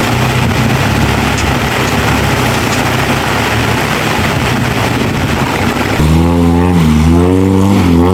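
A 4x4's engine running under a steady rush of noise. About six seconds in, this cuts off abruptly and a louder droning tone starts, wavering up and down in pitch.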